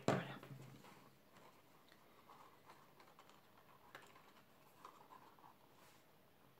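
A knock as a plastic liquid-glue bottle is set down on a craft mat right at the start. Then faint scattered taps and rustles as fingers press a small glued cardstock box together.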